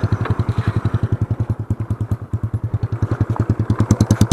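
Yamaha Mio scooter's single-cylinder four-stroke engine idling through an aftermarket Hispeed open exhaust pipe, a steady rapid putter of even pulses. The idle sags a little midway and picks up again near the end.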